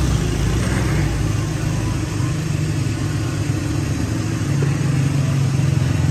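Motor vehicle engines running steadily in street traffic, a low engine hum over general street noise.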